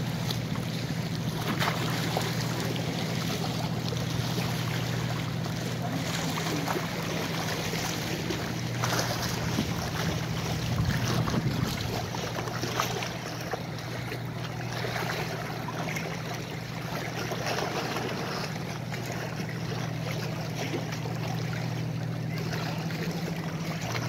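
Small waves of bay water lapping and splashing against shoreline rocks, with a few stronger splashes about nine to twelve seconds in. A steady low hum runs underneath.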